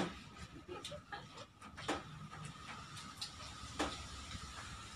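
Eating sounds at the table: chewing and lip smacks with scattered small clicks as food is picked at by hand, the sharpest about two seconds in and near four seconds, over a faint steady high-pitched tone.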